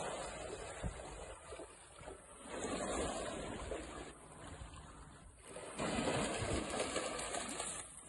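Small sea waves washing onto a pebbly shore, the noise swelling and fading three times, with a dog wading and splashing through the shallows.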